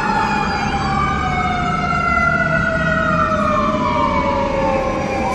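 Emergency vehicle siren wailing, its pitch rising and falling slowly in long sweeps, with two overlapping tones: one sliding steadily down while the other climbs, then falls away over the last couple of seconds.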